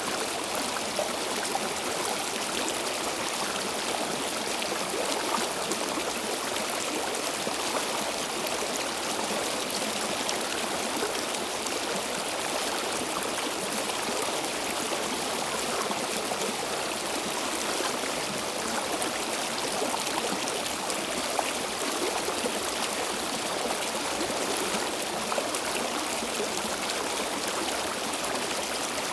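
Stream water flowing steadily over rocks, a continuous even rush with small trickles and splashes.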